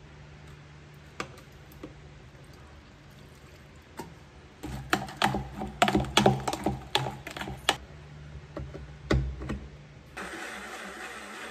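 Clicks and knocks from handling a plastic blender jar, then a thump, and about ten seconds in a small personal blender's motor starts and runs steadily, blending strawberries and condensed milk into a milkshake.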